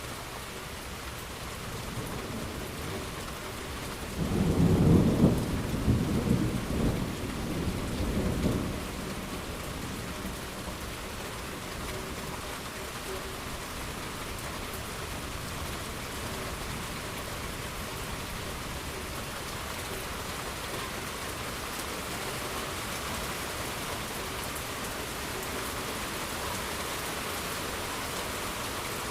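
Steady rain falling, with a clap of thunder that rumbles for about five seconds, starting about four seconds in and fading in a few rolls.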